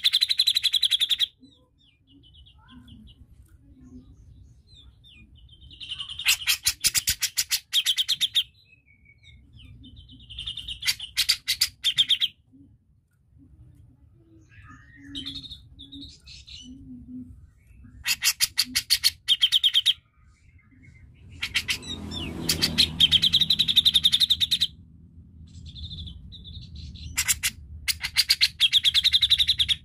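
Grey-cheeked bulbul (cucak jenggot) calling in six bursts of rapid repeated notes, each one to three seconds long, with pauses between. A low rumble rises behind the calls about two-thirds of the way through.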